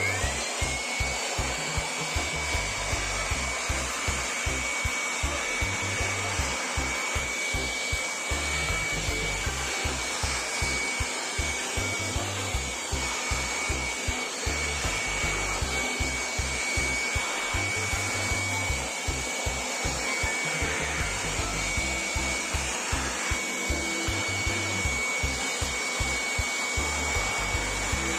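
Small electric motor starting up and running steadily, with a rushing noise and a steady high-pitched whine.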